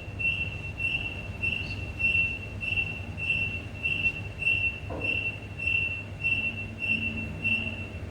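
Lift's electronic buzzer beeping on one high pitch about twice a second, over a steady low hum of the lift, stopping near the end; a short knock about five seconds in.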